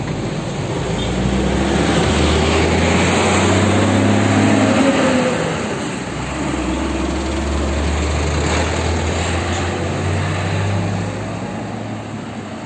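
Large tour bus's diesel engine pulling away and accelerating, rising slightly in pitch and growing louder over the first few seconds. It fades, then a dump truck's diesel engine drones past steadily.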